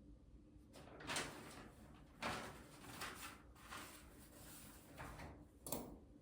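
Several short scraping and knocking noises of things being handled, the loudest about a second in, just after two seconds and near the end.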